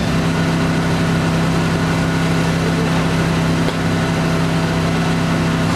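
An engine running steadily at one even pitch, a constant hum with no revving.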